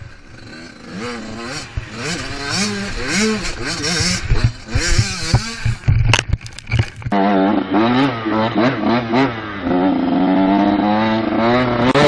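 Dirt bike engine revving up and down repeatedly as the rider accelerates and shifts, with a run of clattering knocks about halfway through as the bike goes down in a crash. A dirt bike engine then runs at steadier revs and rises again near the end.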